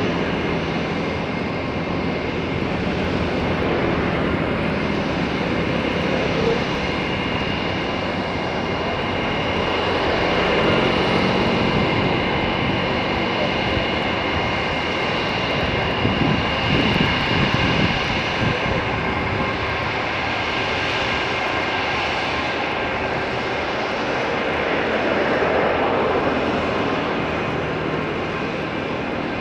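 Airbus A320-232 jet airliner's IAE V2500 turbofan engines running: a steady broad rush with a high, thin whine held through it, swelling and easing slightly.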